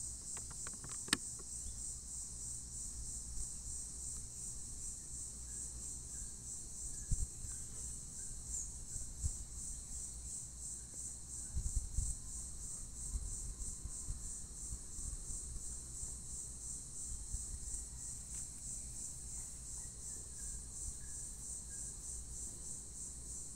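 Crickets trilling steadily in a high, finely pulsing chorus, with a few short low thumps and a click along the way.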